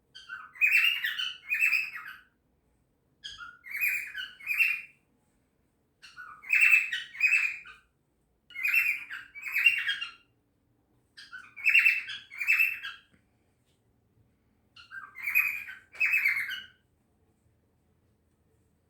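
A six-month-old cockatiel making dolphin-like noises: six bursts of two calls each, repeated about every three seconds.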